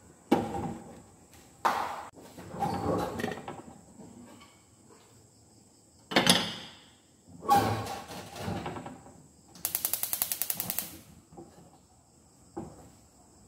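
A frying pan and a plate set down on a gas stovetop with a few knocks and clatters, then the stove's spark igniter clicking rapidly, about a dozen clicks a second for a second or so, as the burner is lit.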